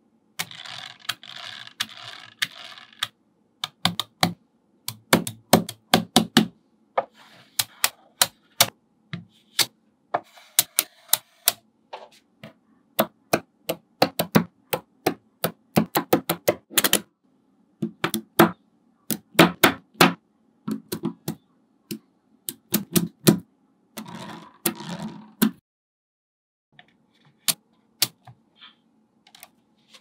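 Small magnetic balls clicking sharply as they snap onto one another, in quick irregular runs. Twice, near the start and again well past the middle, there is a stretch of softer rattling from a cluster of balls.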